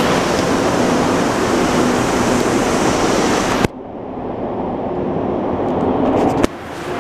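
Rubber-tyred MR-73 metro train running, a loud steady rush and rumble heard from inside the car. The sound breaks off abruptly about halfway through and again near the end, each time swelling back up with a faint steady motor whine.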